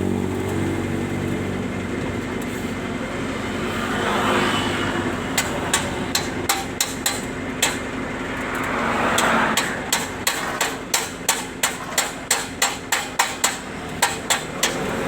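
Hammer blows on metal: a few scattered strikes, then a steady run of about three a second. Under them a low engine hum and two brief swells of noise.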